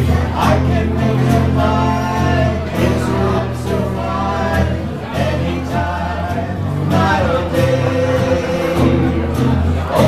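Two men singing a song together, accompanied by a strummed acoustic guitar, the vocals amplified through microphones and a small amplifier.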